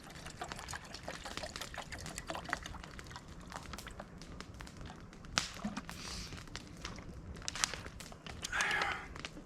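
Water being poured into a small stainless steel pan, with small crackles and ticks throughout; the liquid rush is loudest near the end.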